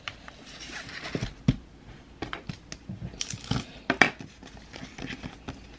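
Scattered clicks, taps and rustles of a 3D pen and paper being handled on a craft table, with a short crinkling rustle about three and a half seconds in.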